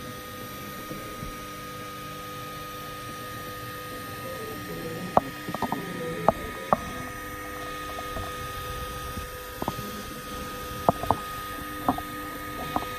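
Ultimaker 3 Extended 3D printer running: a steady motor hum with a few fixed whining tones from its motors and fans. From about five seconds in, a dozen sharp, irregular clicks sound over it.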